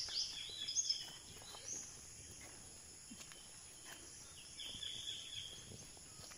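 Quiet outdoor ambience with a few faint bird chirps in the first two seconds and again about five seconds in.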